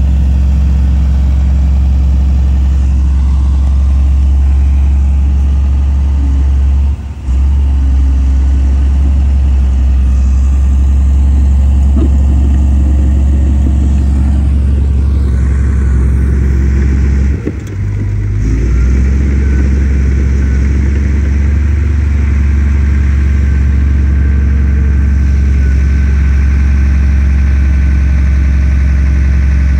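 Heavy diesel engine of earthmoving machinery running steadily at an even pitch, with two brief dips in level.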